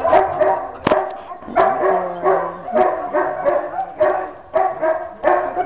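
Dog barking over and over, about two barks a second.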